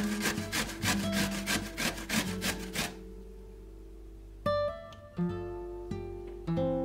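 Zucchini grated on a stainless steel box grater: quick strokes, about four a second, that stop about three seconds in. Under it and after it runs background music of plucked guitar notes.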